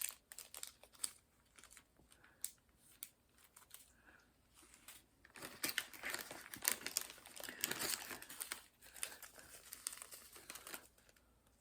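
Small plastic bags of diamond-painting drills crinkling as they are handled. Scattered light clicks at first, then dense crinkling from about five seconds in until shortly before the end.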